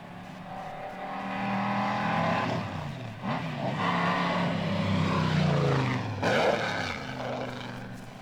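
Mercedes-Benz Grand Prix car's 5.5-litre eight-cylinder engine at racing speed as the car drives past. It grows louder and then fades, and its pitch drops and climbs again twice, about three and six seconds in, as the driver changes gear or lifts and accelerates.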